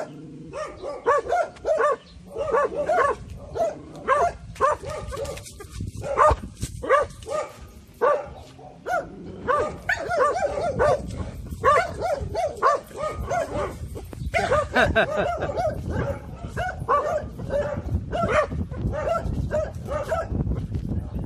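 Six-month-old Taiwan dog (Formosan mountain dog) barking repeatedly in quick succession, an alert bark at an approaching stranger. A low rumble runs underneath in the second half.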